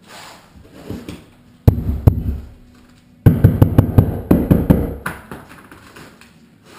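Knocking as a large-format wall tile is tapped into fresh thinset to bed it: two heavy knocks, then a quick run of about ten knocks.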